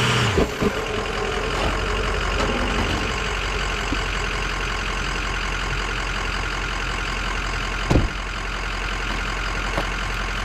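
Ford 6.0 Power Stroke V8 turbodiesel in a 2005 Excursion: its revs fall away just after the start, then it idles steadily. About eight seconds in, the driver's door shuts once with a thump.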